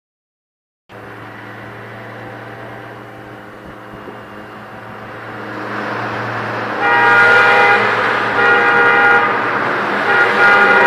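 Motorcycle engine and road noise that grows louder. From about seven seconds in, a multi-tone horn honks in several blasts.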